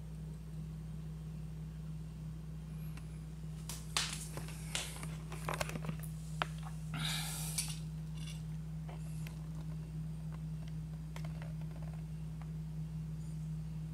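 Steady low hum, with a cluster of clicks, scrapes and a short rustle between about four and eight seconds in: handling noise as the hand-held camera is moved around a chicken-wire cage.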